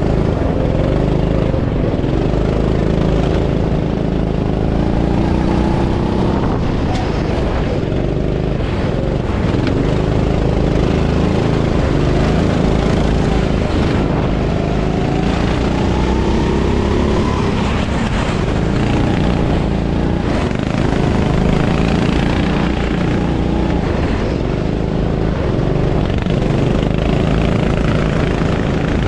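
Go-kart engine heard onboard at racing speed, its pitch rising and falling over and over as the throttle is opened on the straights and lifted for the corners.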